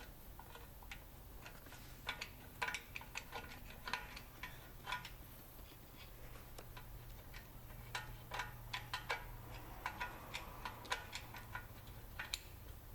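Irregular metallic clicks of a drum-in-disc handbrake's toothed star-wheel adjuster being levered round a notch at a time with a tool through the access hole in the rear rotor, tightening the parking-brake shoes.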